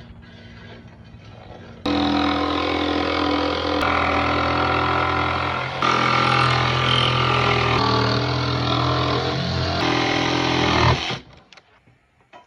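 Background music of held chords that change every couple of seconds, starting abruptly about two seconds in and cutting off shortly before the end.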